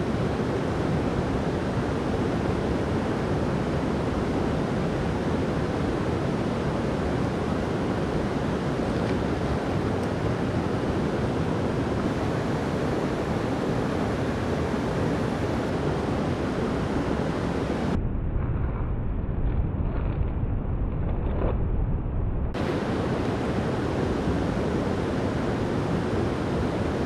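Steady rushing of creek water, an even noise with no pauses; for a few seconds about two-thirds through it sounds duller.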